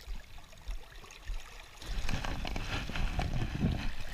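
A lipless rattling fishing lure shaken by hand, its rattles clicking faintly. About two seconds in, louder water sloshing and splashing starts as a person wades through the river current.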